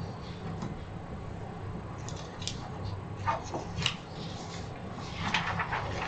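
Meeting-room background: a steady low hum with scattered paper rustling and small handling clicks, growing busier near the end as someone moves papers at the table.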